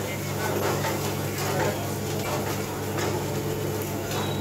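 A steel ladle scraping and clicking against a frying pan as small chopped pieces are stirred in hot oil over a commercial gas burner. A steady low mechanical hum runs underneath.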